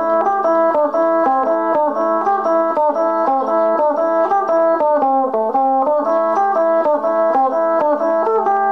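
Isan folk music: a melody played over a steady drone, in the manner of the phin lute, with light regular clicks from percussion such as clappers and small cymbals.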